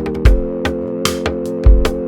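Instrumental soundtrack music: a steady beat of deep kick drums and sharp ticking hits over held chords, with a brighter cymbal-like hit about halfway through.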